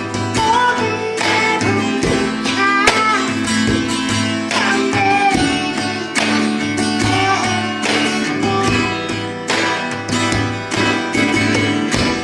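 Music: plucked guitar with a steady beat and a gliding melody line.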